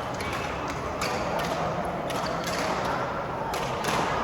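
Badminton rally: several sharp racket hits on the shuttlecock, irregularly spaced, over steady background noise.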